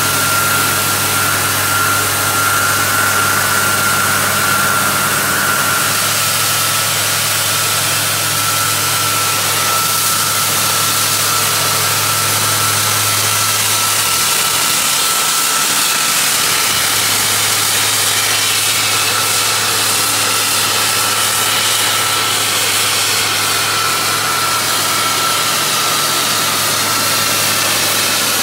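A 1994 Ingersoll-Rand T3W drill rig's engine runs steadily and loudly, with a steady high whine over it, while the hydraulics lower the mast.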